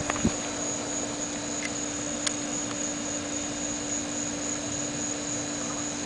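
Steady outdoor background: a continuous high insect trill over a low steady hum. A few short clicks come just after the start and one more about two seconds in.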